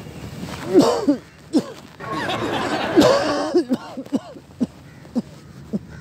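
A man coughing in repeated short hacks, with a longer, harsher coughing fit about two seconds in. It is a put-on cough played as a prank.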